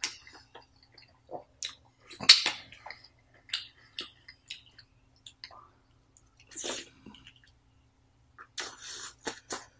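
Close-up wet mouth sounds of eating sauce-soaked king crab meat: a run of sharp wet smacks and clicks with a few louder slurps, about two seconds in, near seven seconds and again near the end.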